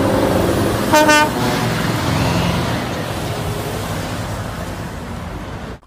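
A Scania semi-truck pulling a container trailer drives past, its diesel engine running and slowly fading. A short horn toot sounds about a second in.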